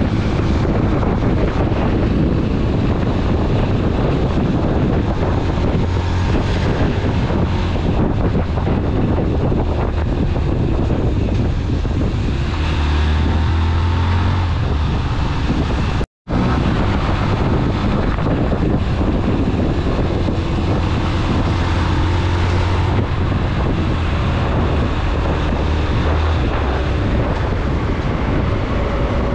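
Motorcycle running on the move, its engine hum under heavy wind noise buffeting the microphone. The sound cuts out for a split second about sixteen seconds in.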